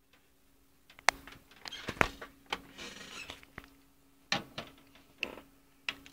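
Clicks and knocks of a metal computer case being handled, with short bits of rustling or scraping in between, over a faint steady hum.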